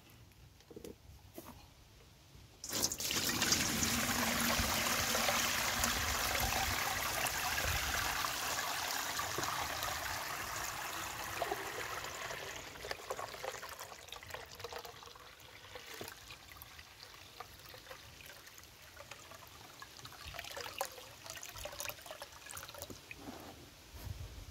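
Steeped nettle and comfrey liquid feed poured from a plastic tub into a metal colander over a bucket. It starts suddenly as a steady rush of pouring and splashing a few seconds in, then slowly tails off into trickling and dripping as it strains through.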